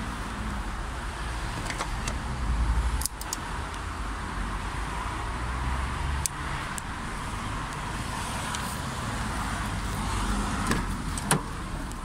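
Rumble of wind and handling noise on a phone microphone, with a few scattered clicks and knocks, the sharpest near the end.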